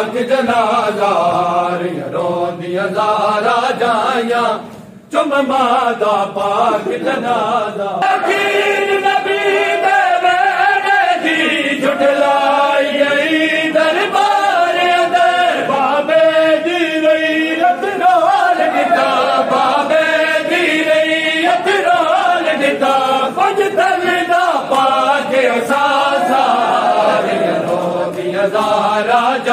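Noha, a Shia mourning lament in Punjabi, chanted unaccompanied by male reciters, with a short break in the voices about five seconds in.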